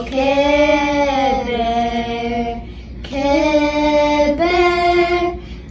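A small group of children singing together with no instruments: two long phrases of held notes, with a short breath between them about halfway through.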